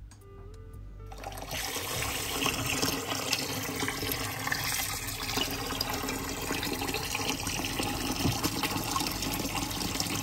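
Water running from a kitchen tap's pull-out spray head into a bowl in the sink, rinsing it out. It starts about a second in and runs steadily.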